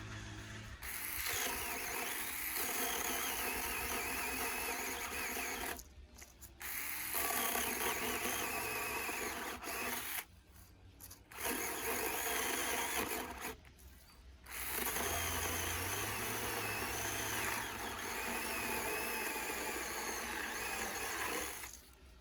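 Portable electric mini chainsaw cutting through a thick log. It runs in long stretches, stops briefly three times, at about 6, 10 and 14 seconds in, and cuts off near the end.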